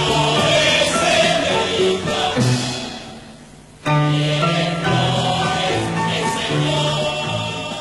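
Stage-musical music with a chorus singing over the accompaniment. It fades down about three seconds in, then comes back in suddenly and at full strength a second later.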